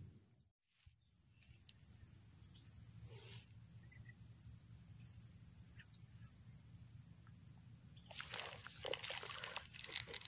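Insects' steady high-pitched drone over a low outdoor rumble, dropping out briefly just after the start. Near the end come a few seconds of rustling and handling clicks.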